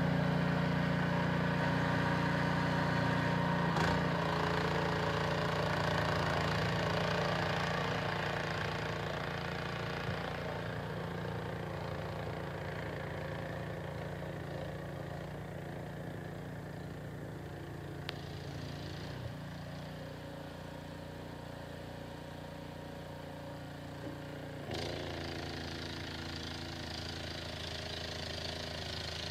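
Snowblower engine running steadily, growing quieter partway through. There is a sharp knock about four seconds in and another a few seconds before the end.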